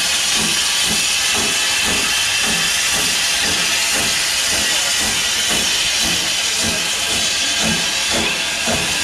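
Small industrial saddle-tank steam locomotive moving off slowly with a coach: a steady loud hiss of steam from the cylinders, with soft exhaust beats at about two or three a second underneath.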